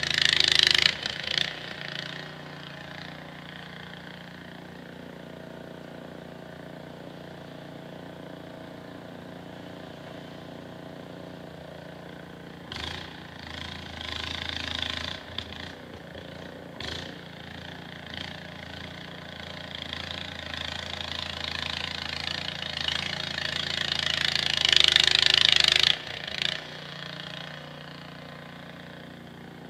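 Small engine of a snowblower running steadily, with stretches of louder, hissing noise over it at the very start, about thirteen seconds in, and building over several seconds near the end before cutting off.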